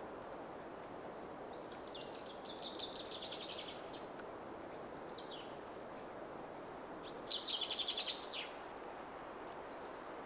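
A songbird singing two quick trilled phrases, one about two seconds in and a louder one about seven seconds in, over a steady background rush.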